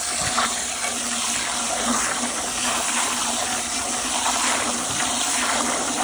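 Garden hose spray nozzle jetting a steady stream of water into a plastic 5-gallon pail, splashing and churning a watery bentonite slurry as the powder is mixed with water.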